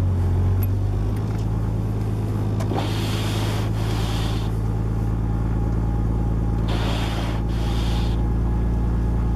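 Swapped Nissan RB20DET turbocharged inline-six idling steadily just after a cold start in freezing weather. A hiss comes and goes twice over the idle.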